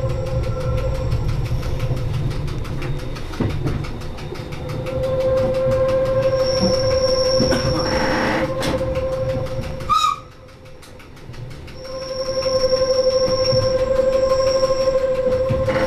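Metre-gauge electric motor coach running downhill, heard from the cab: a steady motor hum with rail noise, and high thin wheel squeal on the curves, twice. About ten seconds in there is a short sharp sound, and it goes quieter for a couple of seconds.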